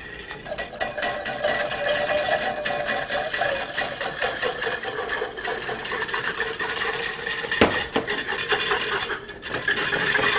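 Wire whisk beating fast against the sides and bottom of an enamel saucepan, a continuous rattling scrape, as milk is whisked into a butter-and-flour roux to make béchamel sauce. One sharper knock comes about three-quarters of the way through.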